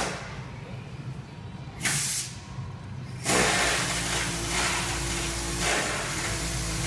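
Loud hissing in bursts over a steady low hum: a short burst about two seconds in, then a long one starting just after three seconds.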